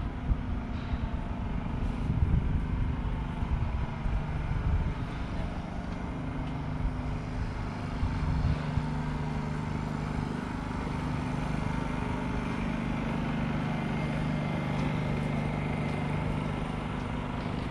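City street traffic: motor vehicle engines running close by, swelling louder in the first few seconds, then settling into a steady engine hum.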